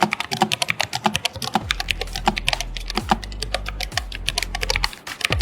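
Fast, continuous typing on a Keychron K3 Version 3 low-profile mechanical keyboard with built-in acoustic foam: a quick, dense run of keystroke clicks.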